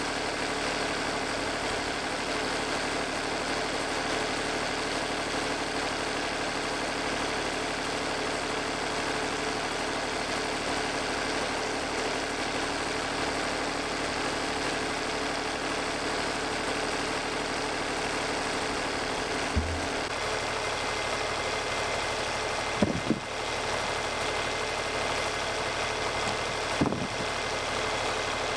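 Portable band sawmill's engine running steadily, with a few short knocks in the last third.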